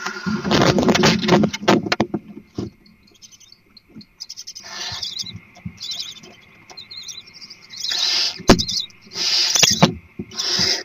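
Barn owls: a loud scuffle for about the first two seconds, then scattered scratches and several raspy, hissing screeches.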